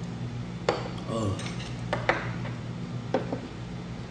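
Tableware clinking: a drinking bowl set down on the table and metal chopsticks tapping a plate, three sharp clicks, each with a short ring, over a steady low hum.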